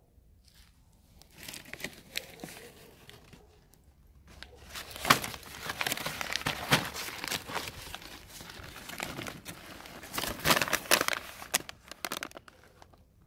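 A paper charcoal-briquette bag crumpled and rustled by hand, in irregular crinkling bursts that are loudest about five seconds in and again near ten seconds, dying away shortly before the end.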